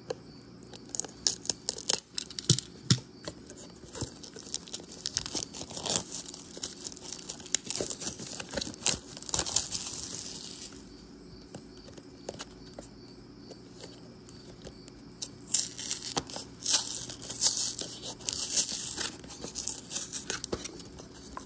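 Plastic shrink wrap on a trading-card booster pack being slit with a utility knife and peeled off, crinkling and tearing in bursts with a quieter stretch midway, then the thin cardboard box being pried open.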